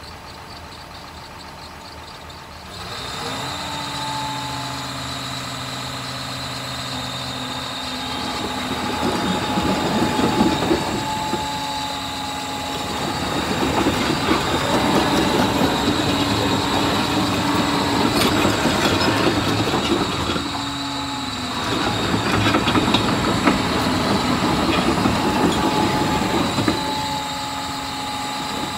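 A John Deere 850K crawler dozer's six-cylinder diesel engine idling, then revving up about three seconds in, with a steady whine over it. The dozer then travels in stretches, its steel tracks clanking and squealing over gravel, easing off briefly twice before rising again.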